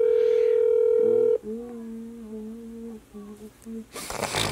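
A phone's steady electronic tone, ending about a second and a half in. Then a woman hums a few low, wavering notes. Near the end comes a rustle of fabric brushing against the phone.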